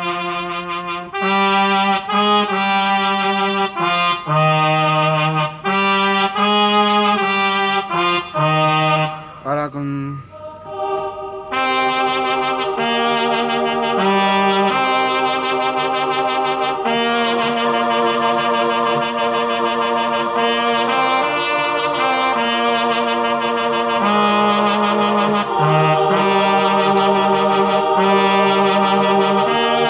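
Electronic arranger keyboard playing a hymn melody on a brass trumpet-like voice over chords. Short phrases of separate notes give way to a brief lull about ten seconds in, and after that the melody goes on over longer held chords.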